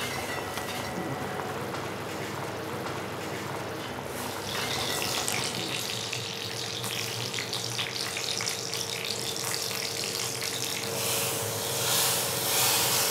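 Seeds crackling and sizzling in hot oil in a small tempering pan, starting about four seconds in. A louder hissing sizzle follows near the end as the hot tempering is poured into the simmering kadhi.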